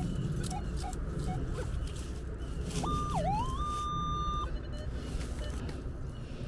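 Minelab Manticore metal detector sounding a target tone as the coil passes over buried metal. The tone is a steady beep about three seconds in that dips sharply in pitch, climbs back and holds for about a second and a half, over a steady low rumble.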